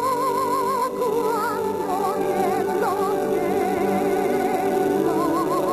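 Operatic singing: a high voice with wide vibrato, changing notes every second or so, over steady instrumental accompaniment.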